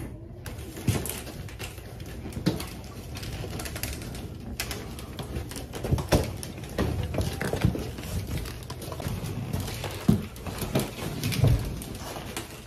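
Wheeled suitcases being rolled and handled, with a steady low rumble from the wheels and irregular knocks and bumps as the luggage is pulled through a doorway and along a carpeted corridor.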